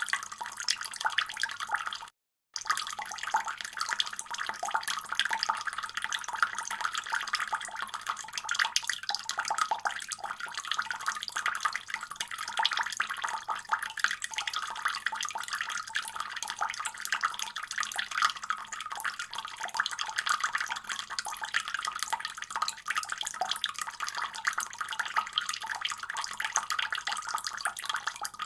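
Water running steadily from a faucet, a constant splashing stream. It cuts out to silence for a split second about two seconds in, then carries on unchanged.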